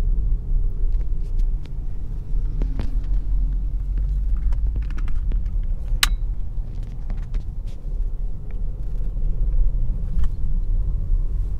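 Steady low rumble of a car being driven, engine and tyre noise heard from inside the cabin, with a single sharp click about six seconds in.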